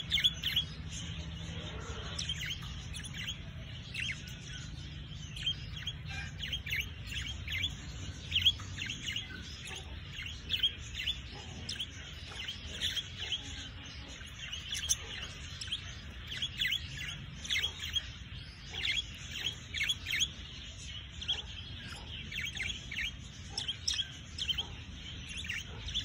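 A cage of budgerigars chirping and chattering: many short, high chirps overlapping one another without pause.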